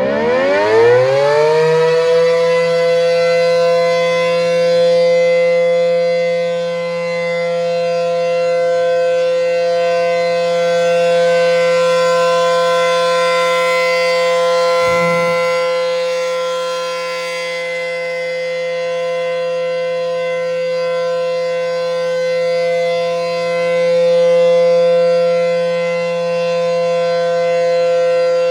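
ACA P-15 outdoor warning siren winding up, its pitch rising over the first couple of seconds, then holding one steady tone as the alert signal of a siren test. Its loudness slowly swells and fades, and there is a brief low thump about halfway through.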